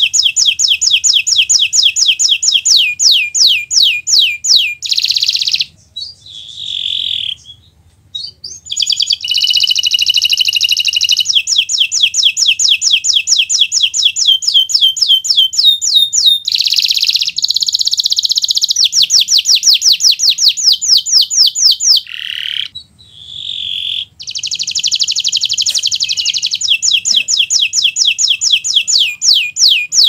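Domestic canary singing a long, loud, competition-style song. It alternates dense buzzy rolls with fast trills of repeated falling notes, about eight a second, and breaks off briefly twice, about six seconds in and again past twenty seconds.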